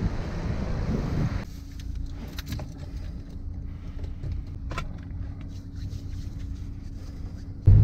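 Wind rumbling on the microphone for about a second and a half, then a sudden change to the quiet inside of a parked car: a steady low hum with a few light clicks and jingles, like keys and dashboard switches being handled.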